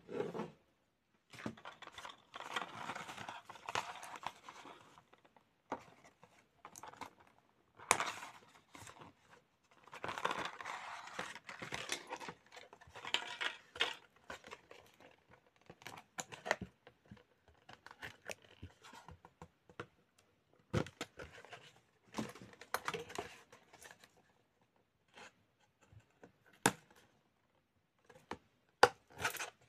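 Doll-clothes packaging being taken apart by hand: cardboard backing card and plastic fastenings rustling and scraping, with sharp snips and clicks as scissors cut the plastic ties free. Longer rustling spells come a couple of seconds in and again around the middle.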